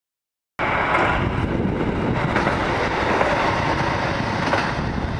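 Shimabara Railway KiHa 2500-series diesel railcar running through the station at speed as a non-stopping express, close by: steady running noise of engine and wheels on rail, with faint clicks over the rail joints. It cuts in suddenly about half a second in.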